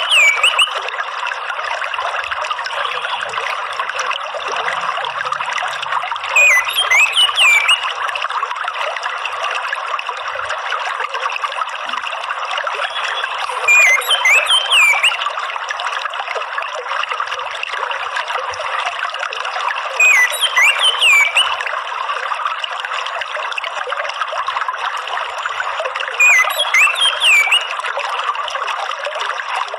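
Steady trickling, flowing water, with a short chirping bird phrase of quick up-and-down notes repeating about every six and a half seconds.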